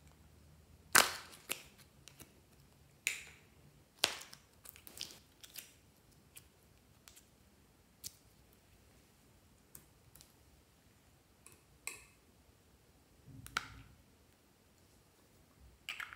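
Sharp clicks and snaps of hard plastic toy capsules being pried open and handled, scattered irregularly, the loudest about a second in and a quick run of smaller clicks around five seconds in.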